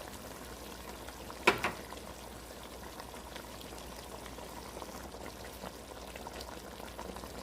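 Pot of chicken soup simmering with a steady bubbling hiss, with small ticks and a single sharp knock about one and a half seconds in.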